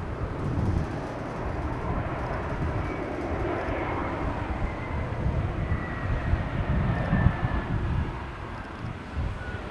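Airbus A320 jet on landing approach, its engines giving a steady rumble with a faint whine that slowly falls in pitch as the airliner passes.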